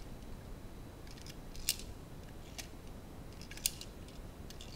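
A handful of small, sharp clicks from the full-metal airsoft MP5K and its metal magazine being handled, scattered irregularly, with two louder ones.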